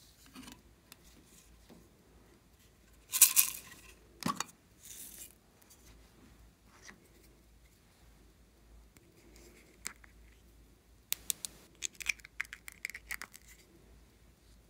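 Small handling sounds from adding glitter toppings to slime: a short tearing or rustling burst about three seconds in, a sharp click, then a quick run of light clicks and ticks near the end as loose blue glitter goes onto the slime.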